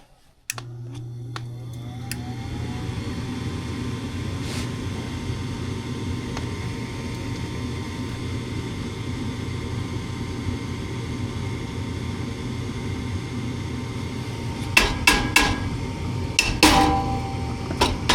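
A gas furnace's draft inducer motor starts about half a second in, rising briefly in pitch and settling into a steady hum as the ignition sequence restarts. No burner lights, because the gas valve is failing to open. A run of sharp clicks and knocks comes near the end.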